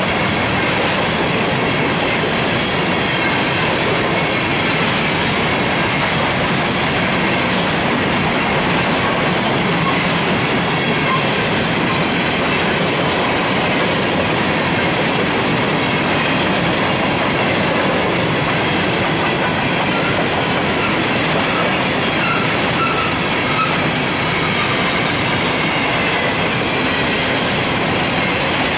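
Norfolk Southern covered hopper cars of a long freight train rolling past close by: a steady, loud noise of steel wheels running on the rails, with a few faint brief squeals about three-quarters of the way through.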